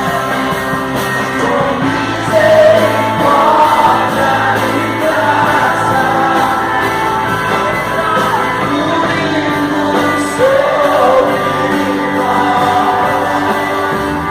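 Rock-style gospel song with a sung vocal over a band.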